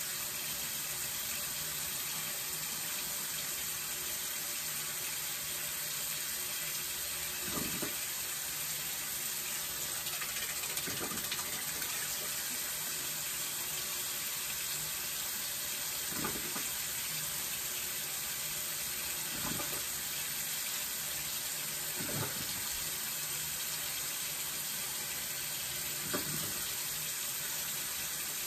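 Bathroom sink tap left running, a steady hiss of water, with a few faint brief knocks now and then.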